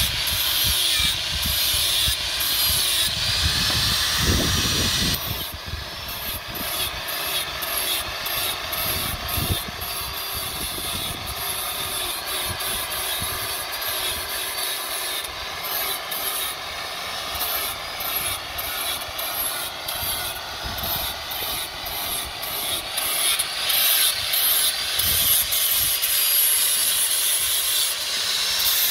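Handheld electric angle grinder with an abrasive disc grinding a steel knife blade. The motor whine wavers in pitch as the disc is pressed onto the steel. It is louder for the first few seconds, quieter from about five seconds in, and louder again near the end.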